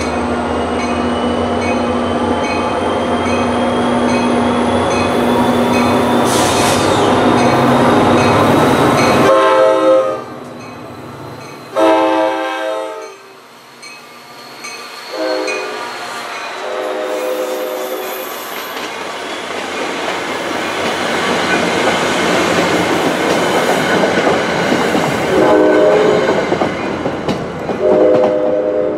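NJ Transit GP40PH-2B diesel locomotive passing with its engine rumbling, then its air horn sounding two long blasts, a short one and a long one, the grade-crossing signal, with two more blasts near the end. Between the blasts the wheels of the following coaches rattle along the rails.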